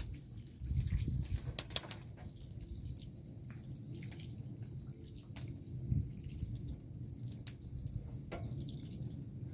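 Thin stream of water running from a plastic dispenser's tap and splashing into a metal tray as a whole fish is rinsed by hand, with scattered drips and splashes over a steady low rumble.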